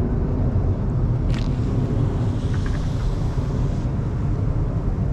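Car engine running with a steady low rumble, heard from inside the car. There is a short sharp click about a second in, followed by a faint hiss lasting a couple of seconds.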